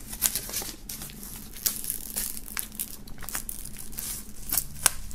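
Plastic wrapping film on a cardboard CD sleeve being pierced with a folding knife and torn open: crinkling and tearing with an irregular string of short crackles and scratches.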